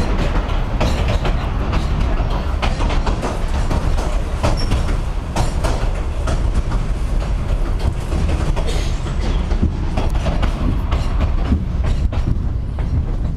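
Cumbres & Toltec narrow-gauge passenger car running through a rail tunnel: a steady loud rumble of wheels on the track with frequent sharp clacks from the rail joints.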